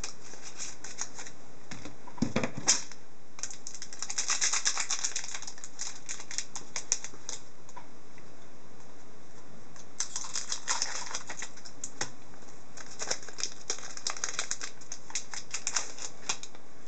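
A trading-card pack wrapper crinkling and tearing as it is opened, in several bursts of rapid crackling, with a couple of dull knocks near the start.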